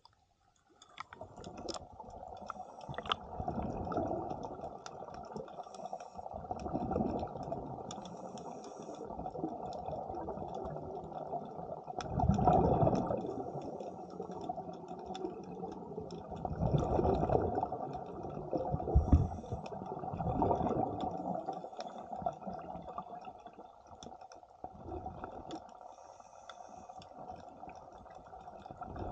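Muffled underwater noise heard through a diving camera once it goes under the surface about a second in: swells of bubbling every few seconds, typical of a diver's exhaled breath, over faint crackling clicks.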